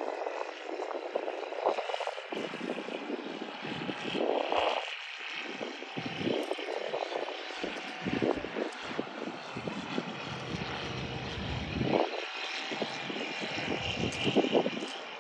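Ultralight aircraft's propeller engine droning steadily as it flies past, with uneven low rumbles throughout.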